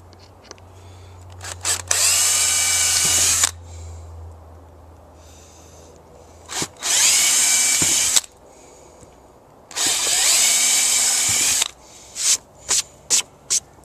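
Handheld power drill boring holes in a wooden board: three runs of about a second and a half each, the motor whine climbing as it comes up to speed and then holding. Near the end come about five quick short trigger bursts.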